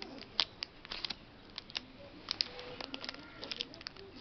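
Plastic wrapper of a small Cadbury Dairy Milk bar crinkling as a baby grips and fiddles with it: irregular quick little crackles.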